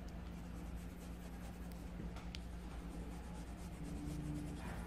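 Pencil rubbing across paper as a drawing is shaded in, over a low steady hum.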